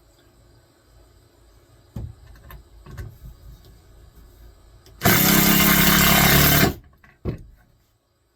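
Cordless screw gun running in one steady burst of about a second and a half, with a few knocks from handling the wood before and after it.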